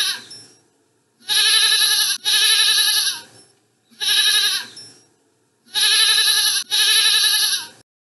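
Goat bleating, a series of about six wavering calls, each roughly a second long, mostly in close pairs.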